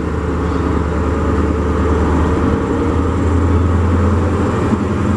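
Diesel engine of a British Rail Class 43 HST power car running as the power car moves slowly past at close range: a steady deep rumble that grows a little louder about three seconds in.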